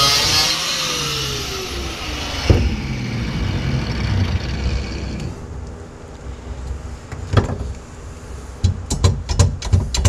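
Angle grinder with a cut-off disc finishing a cut through the car's sheet-steel floor pan, then released and winding down in a falling whine over about two seconds. Afterwards there are a few knocks and a quick run of metallic clicks and rattles near the end, as the cut-out piece and loose metal parts are handled.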